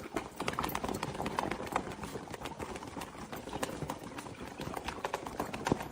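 Rapid, irregular clicking and tapping on a hard surface, many taps a second, continuing throughout and stopping just before the end.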